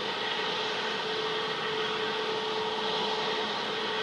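Airbus A350-900's Rolls-Royce Trent XWB turbofan engines running steadily as the airliner rolls along the runway: an even jet hiss with a low steady whine held underneath.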